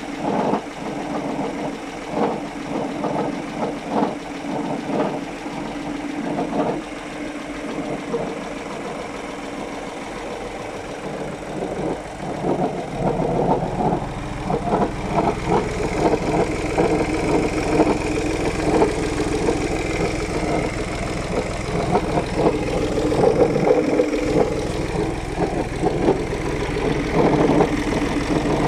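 Audi A1 1.4 TDI diesel engine idling with an irregular clattering noise, the strange noise that comes with working the clutch pedal. About thirteen seconds in, a deeper drone joins and the clatter grows louder and denser.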